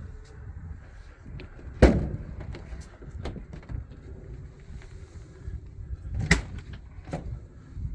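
Two loud knocks or bangs about four and a half seconds apart, the first the loudest, with a few fainter clicks between and after, over a steady low rumble.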